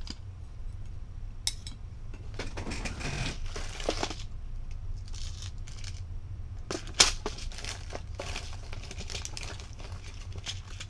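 Small screws and hardware rattling and clicking in a clear plastic multi-compartment parts organizer as it is handled and searched, in several short bursts with one sharp click about seven seconds in. A steady low hum runs underneath.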